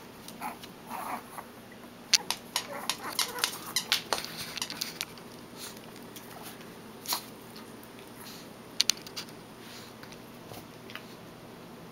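A plush squeaky toy being chewed by Yorkshire terriers at play, giving a run of short sharp squeaks. The squeaks are densest from about two to five seconds in, with a single squeak a couple of seconds later and a quick pair near the end.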